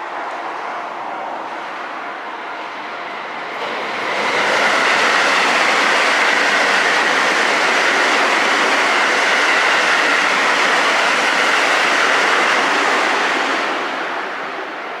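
223-series electric train passing over a level crossing: its rolling noise swells about four seconds in, stays loud for roughly nine seconds, then fades near the end. A level-crossing warning bell rings steadily underneath.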